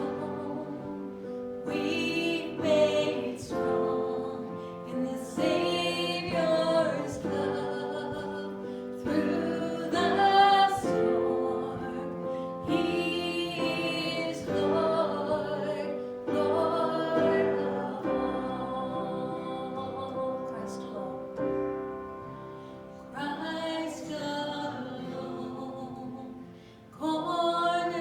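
Congregational singing with music: voices singing a hymn together, phrase after phrase, with a dip just before the next phrase near the end.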